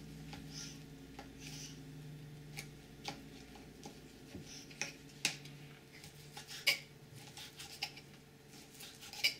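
Links of Chinese sausage being pulled apart and handled on a paper sheet, then sliced with a knife. The blade knocks through onto the stone counter in scattered sharp little clicks, most of them in the second half.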